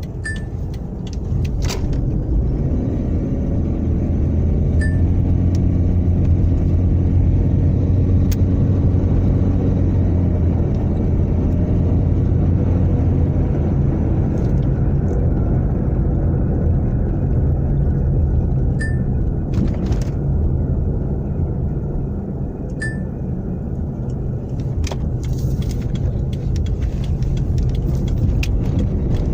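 Toyota Prius (second generation) on the move, a steady low road and drivetrain rumble that builds over the first few seconds, with several sharp single knocks at irregular intervals. The knocks come from a worn front strut top mount, which had first been taken for a knocking steering rack.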